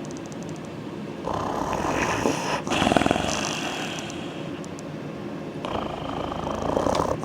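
German Shepherd dog snoring in deep sleep: two slow breaths, the louder peaking about three seconds in.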